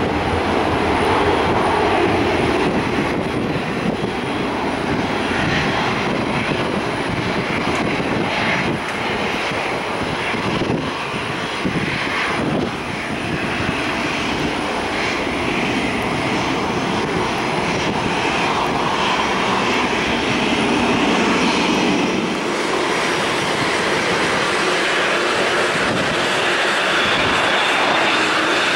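Jet engines of an Airbus A320-family airliner at takeoff power, running steadily as it rolls down the runway and climbs out. About three quarters of the way in the sound changes to the lighter, higher whine of a UPS Airbus A300 freighter's engines on approach to land.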